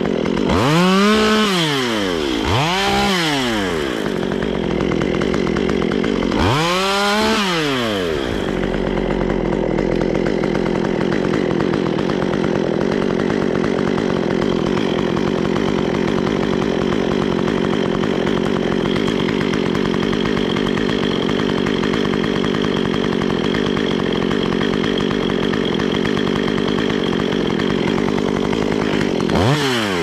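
Stihl MS 193 two-stroke chainsaw revved up and down in three quick blips, then held at steady high revs for about twenty seconds as it cuts, dropping back near the end. The chain is poorly sharpened.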